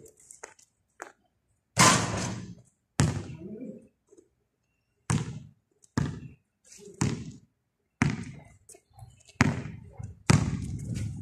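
Basketball being dribbled on a concrete court: about eight sharp single bounces, irregularly spaced roughly a second apart.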